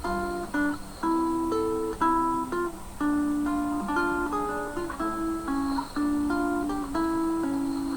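Acoustic guitar music: plucked and strummed chords in a slow, even pattern.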